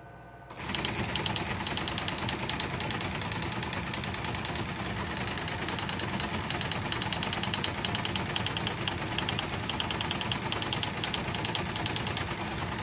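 Teletype Model 28 KSR teleprinter starting to print about half a second in, then running on as a rapid, continuous mechanical clatter of its typing unit. It is receiving a 100 words-per-minute feed, with the electronic speed shift set to 100 wpm.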